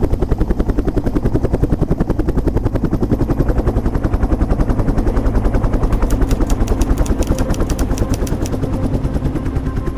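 Helicopter rotor chopping in fast, steady beats, joined about six seconds in by a rapid run of sharp cracks for a couple of seconds.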